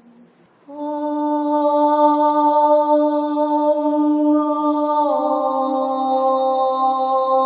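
A voice chanting one long held tone, coming in suddenly under a second in and stepping down slightly to a lower pitch about five seconds in.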